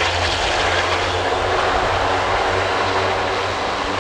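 Airbus A400M's four TP400 turboprop engines and propellers running at high power, a steady propeller drone with a low hum beneath a loud rush, as the aircraft moves backwards on the runway under reverse thrust.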